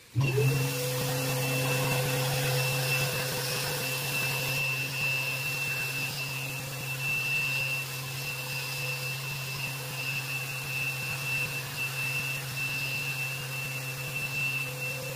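Electric random orbital sander running on an epoxy resin table top. It starts with a quick rising whine, runs steadily with a constant high whine over its hum, and begins winding down at the very end as it is switched off.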